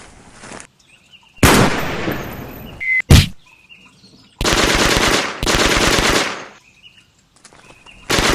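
Gunfire sound effects: a single loud shot with a long echoing tail about a second and a half in, another sharp shot about three seconds in, then two long rapid machine-gun bursts, and one more shot near the end. Faint birdsong chirps in the pauses.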